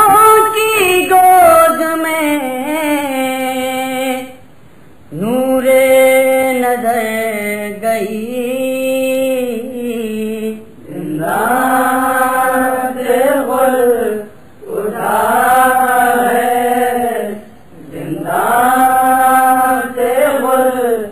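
Noha recitation: a male voice chanting an Urdu lament in long, drawn-out phrases, each a few seconds long, with short pauses for breath between them.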